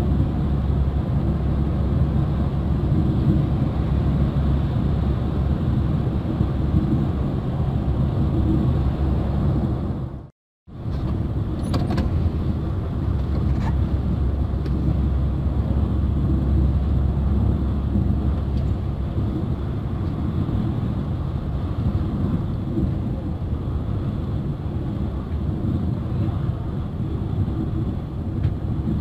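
Steady low engine rumble and road noise heard from inside a vehicle cruising on a highway. The sound cuts out completely for a split second about ten seconds in, then carries on the same, with a few faint ticks just after.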